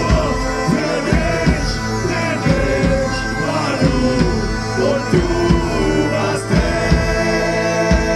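Live medieval folk band music: a steady held drone with a melody over it and regular drum beats.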